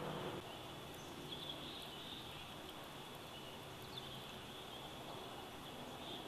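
Faint nature ambience: a steady high-pitched chirping with a few short, brighter chirps over a soft hiss. A louder hiss cuts off about half a second in.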